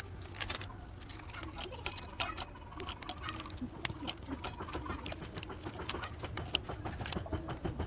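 Parle-G biscuits being snapped into pieces by hand and dropped into a small stainless-steel grinder jar: a run of light, irregular clicks and snaps.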